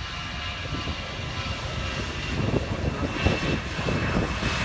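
Jet airliner's engines at takeoff thrust during the takeoff roll, the plane past 120 knots: a steady high whine over a low rumble that grows louder and rougher about halfway through.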